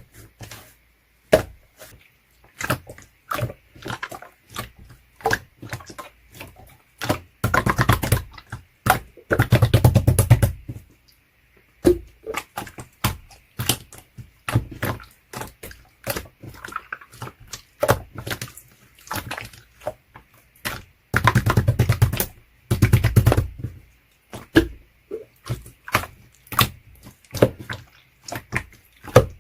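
Hands squishing, pressing and poking slime, giving dense sticky clicks and crackling pops, with thicker bursts of crackling twice.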